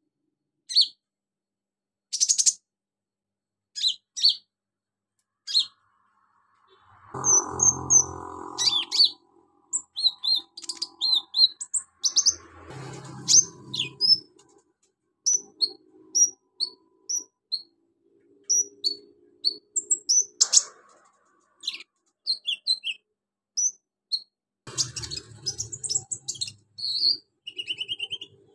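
A caged sunbird, kept as a song bird under the name konin, singing in short, sharp, high chirps and trills, sparse at first and then in quicker runs. Lower, rougher stretches of sound come in about a quarter of the way through, around the middle and near the end.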